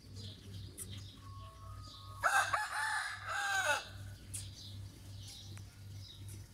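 Rooster crowing once, a call of about a second and a half starting about two seconds in. A low pulsing hum runs underneath, and small birds chirp faintly.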